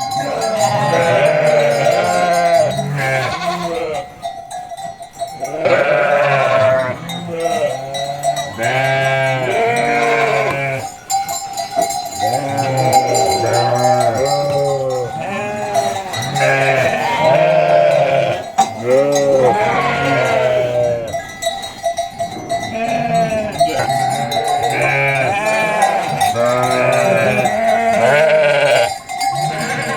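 A flock of sheep bleating: many overlapping calls, one after another, with a bell ringing steadily under them.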